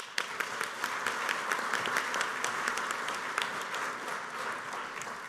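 Audience applauding, many hands clapping. It starts suddenly and begins to die down near the end.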